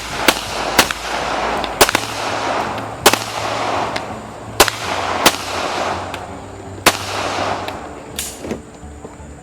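Handgun shots fired one after another at uneven intervals, about eight in all, each followed by a rolling echo.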